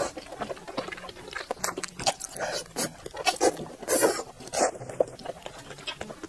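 Mouth sounds of a person biting and chewing chili-oil-dressed salmon slices pulled off a skewer: irregular short clicks and smacks, a few a second.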